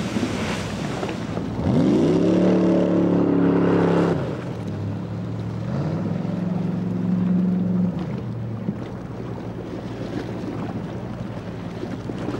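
Small jet boat's engine revving, climbing steeply in pitch about two seconds in and holding high for a couple of seconds, then dropping. It rises and holds again from about six seconds and fades near eight seconds, with a steady rush of water and wind.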